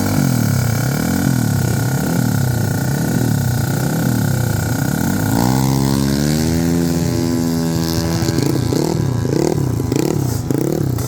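Drag-racing motorcycle engine revved in quick repeated blips, its pitch rising and falling about every 0.7 seconds. About halfway it climbs to a held higher rev, then drops back into rhythmic blipping near the end.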